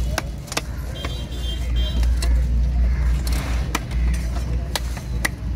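A heavy fish-cutting knife chopping a trevally on a wooden log block: about a dozen sharp knocks at uneven spacing, over a steady low rumble.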